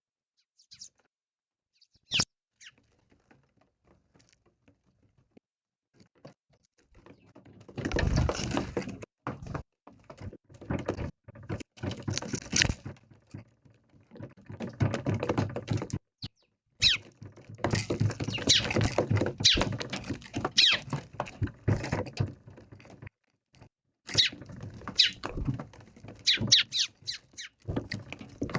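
Eurasian tree sparrows pecking and scrabbling at food close to the microphone: a fast, irregular clatter of small taps, sparse at first and nearly continuous from about seven seconds in, with a few short chirps.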